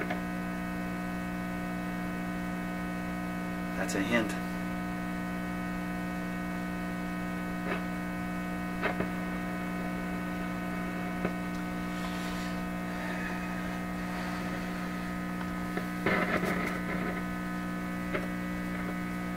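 PYE 39HC valve shortwave receiver humming steadily through its speaker, a mains hum with a stack of evenly spaced tones and no station coming through: the symptom of the fault in the set. A few sharp clicks and a short crackle about 16 seconds in.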